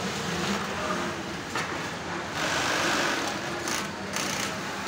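Steady mechanical running noise of industrial sewing machines, with a louder stretch of about a second a little past the middle.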